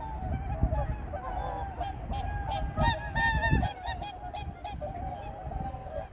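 A flock of whooper swans calling, many bugling honks overlapping, loudest and most crowded about halfway through, over a steady low rumble.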